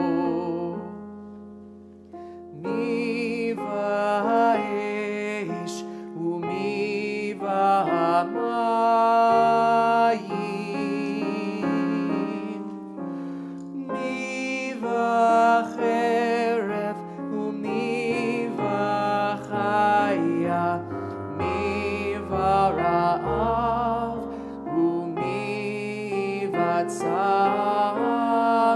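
Live liturgical music: piano accompanying a melody line with vibrato. The music fades briefly about two seconds in and then carries on.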